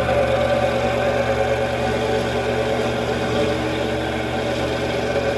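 Mini metal lathe running steadily during a cutting pass, its motor and gearing giving a steady hum with a mid-pitched whine.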